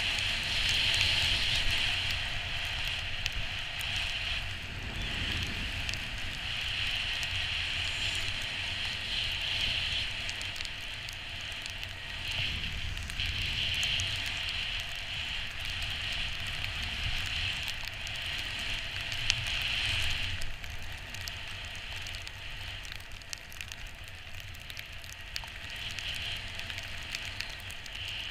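Skis sliding on snow: a steady crackly hiss that swells and eases in stretches as the skier turns, over a low wind rumble on the microphone.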